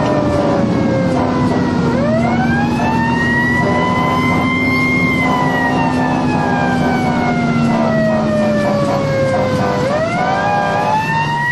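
Fire engine's siren wailing as heard from inside the cab: it rises about two seconds in, peaks, falls slowly, then climbs again near the end. Engine and road noise run underneath.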